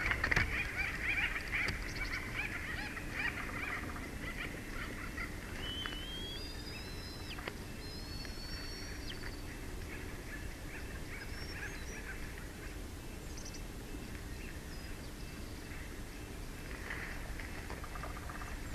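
Bald eagles chirping at the nest in a rapid run of short, high calls during the first few seconds and again briefly near the end. Between them come a few thin rising whistled notes from a smaller bird, over a steady outdoor hiss.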